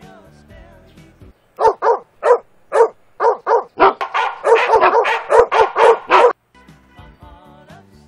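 Recorded dog barking played through a small portable speaker by a DIY PIR motion-sensor barker alarm. The alarm has been triggered, and the barks are loud: first about two a second, then quicker and running together, cutting off suddenly.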